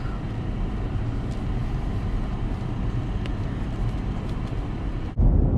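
A car travelling at speed: steady road and engine noise with a low rumble. About five seconds in it drops out for an instant and a louder, deeper rumble takes over.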